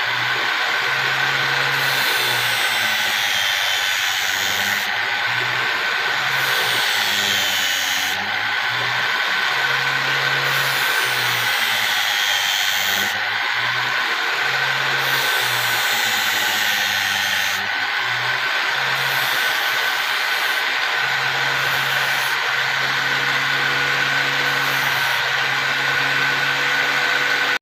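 Electric angle grinder running steadily with a high whine while the steel blade of a hand-forged sickle is ground on its abrasive disc, the grinding note changing every second or two as the blade is pressed on and shifted.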